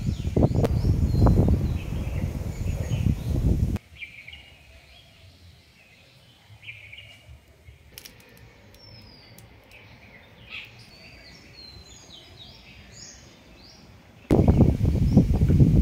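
Several birds chirping and calling in short, quick notes. A loud, gusty low rumble of wind on the microphone covers the first four seconds, cuts off suddenly, and returns near the end.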